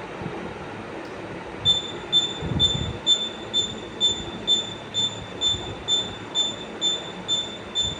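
A high-pitched squeak repeating evenly about twice a second, starting a little under two seconds in, over a steady noisy hum.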